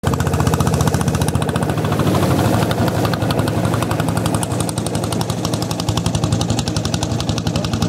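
The engine of a long, narrow wooden motorboat running steadily at speed, giving a fast, even stream of firing pulses.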